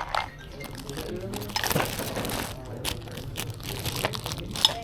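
Rustling and crinkling handling noise with a few sharp clicks and knocks, and faint voices in the background.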